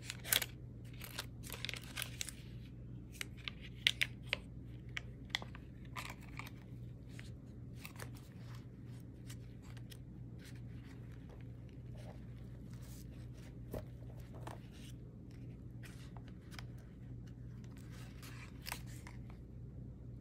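Thick paper tag pages of a collage junk journal being handled and turned: crisp paper rustles and clicks, busiest in the first several seconds and sparser later. A low steady hum runs underneath.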